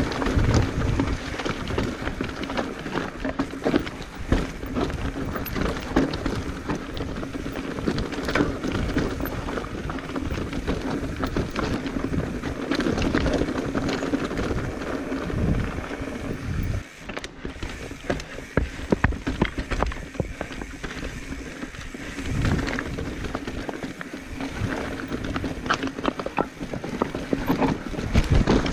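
Commencal Meta Trail 29 mountain bike descending a rocky trail: constant clatter and rattle of tyres, chain and frame over stones, with many sharp knocks from rocks and drops. The noise eases briefly about two thirds of the way through.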